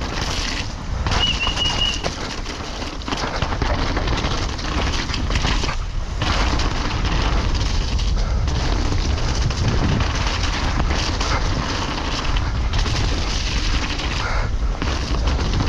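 Downhill mountain bike ridden fast down a wet, muddy trail: continuous rumble of tyres in mud and rattling of the bike, with a brief high squeal about a second in.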